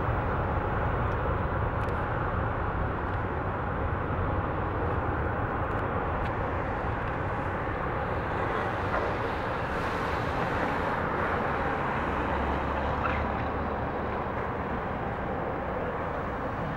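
Airbus A380 airliner's four Rolls-Royce Trent 900 jet engines running as it rolls along the runway: a steady, even jet noise that holds its level throughout.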